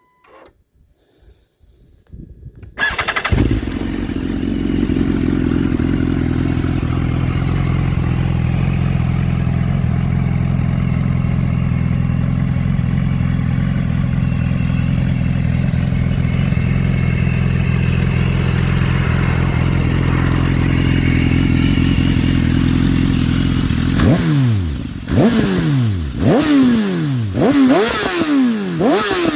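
2013 BMW HP4 Carbon's 999 cc inline-four with its stock exhaust, started about three seconds in and settling into a steady idle. Near the end it is revved in a series of quick throttle blips, each pitch rising sharply and falling back.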